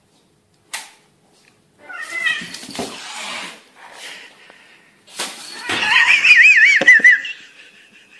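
A cat and a puppy scuffling on a tile floor: sharp slaps and paw knocks, with the cat hissing. Near the end comes a loud, high, wavering cry lasting about a second and a half.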